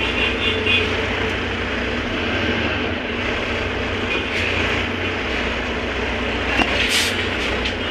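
City bus running, heard from inside the cabin: a steady engine drone and road rumble, with a couple of short rattles near the end.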